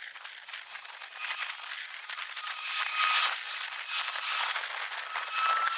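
Boeing 737 airliner's jet engines during touchdown and landing rollout, played back at four times speed so the noise is an even high hiss with no low rumble. A faint whine sits in the hiss and rises near the end.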